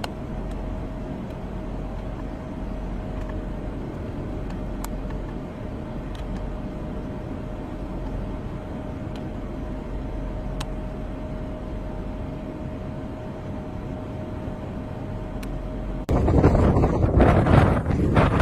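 A steady low rumble with a constant mid-pitched hum and a few faint ticks. About sixteen seconds in, it cuts abruptly to loud, gusting wind buffeting the microphone.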